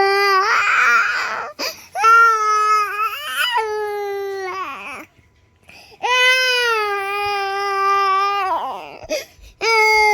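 Baby crying: long, steady wails, each lasting a couple of seconds, with short breaks for breath between them, about four in all.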